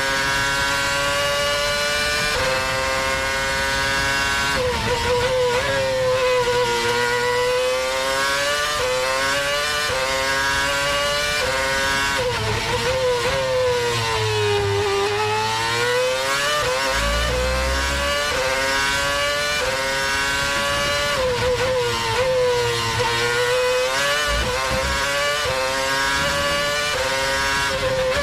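Formula 1 2.4-litre V8 engine at high revs, its pitch climbing through each gear and dropping at each upshift. Twice it falls low as the car slows and then winds up through the gears again.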